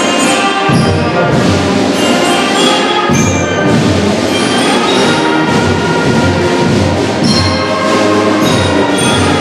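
School concert band playing a full-ensemble passage: brass led by sousaphones, trombones and trumpets over snare drum, bass drum and mallet percussion.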